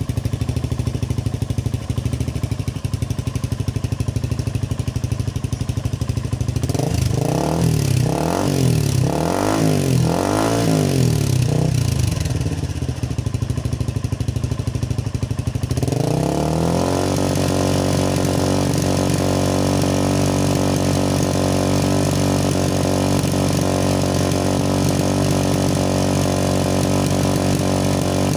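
Motorcycle engine through a replica Akrapovic exhaust, idling, then blipped through about five quick revs, then brought up a little past halfway to a higher speed and held there steadily.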